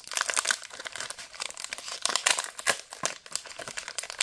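Plastic wrapper of a Donruss football fat pack crinkling and tearing as hands peel its crimped end open: a dense, irregular crackle.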